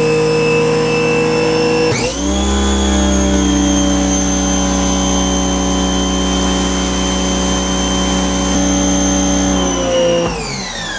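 Grandfalls base-model electric pressure washer's motor and pump running with a steady multi-tone whine. About two seconds in there is a sharp click and the pitch dips and climbs back. Near the end it winds down with falling pitch.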